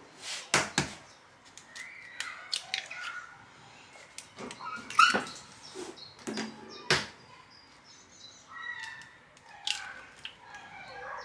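Two eggs cracked on a wooden worktop and pulled open over a food processor bowl: a series of sharp taps and knocks of shell on wood, spread out with pauses between.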